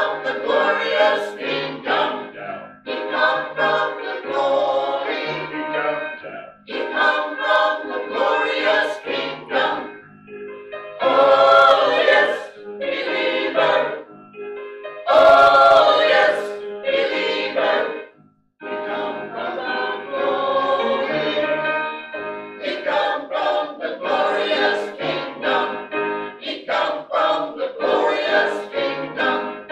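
A small mixed choir of men's and women's voices singing a song together in phrases, with a brief break about eighteen seconds in.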